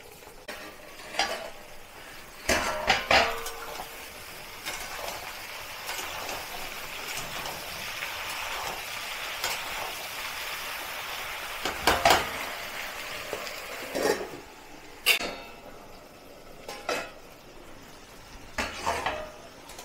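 Eggplant pieces sizzling in hot oil in a metal kadhai on high heat, with metallic clinks and clanks as a steel plate lid is handled and the pieces are turned with steel tongs against the pan. The clanks come at intervals, one ringing on briefly about three seconds in.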